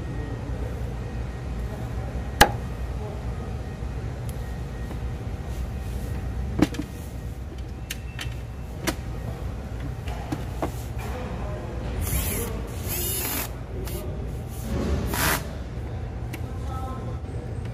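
Handling noise as a hard drive is fitted into a DVR's metal case: a few sharp clicks and knocks, the loudest a few seconds in, then rustling and scraping bursts later on, over a steady low rumble.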